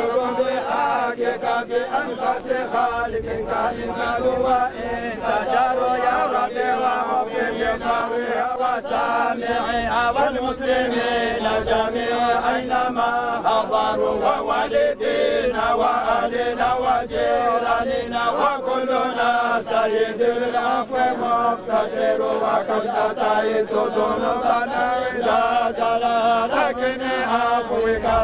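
A crowd of men chanting together, unaccompanied, in a Sufi funeral dhikr: many voices held on a shared pitch, going on without a pause.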